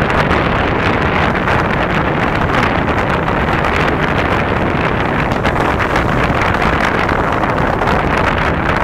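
Wind buffeting the microphone: a loud, steady rumbling rush with no single bang standing out.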